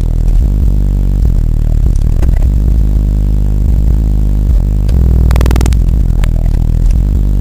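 Car stereo subwoofer playing the deep bass of a hip hop track very loud inside a small Honda CRX cabin, with a brief buzzing burst about five seconds in.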